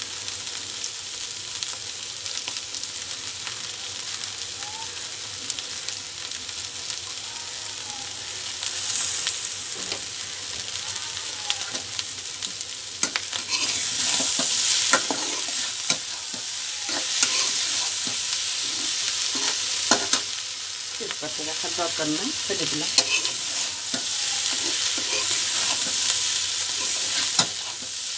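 Cauliflower and papaya frying in mustard oil in a metal karahi, sizzling steadily. From about halfway on, a metal spatula stirs the vegetables, louder, with sharp clinks and scrapes against the pan.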